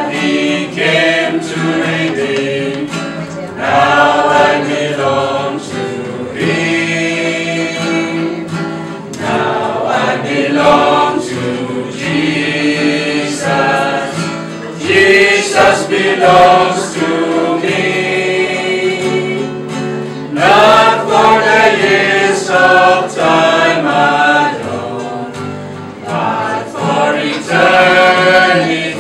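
A small mixed choir of men and women singing a hymn together.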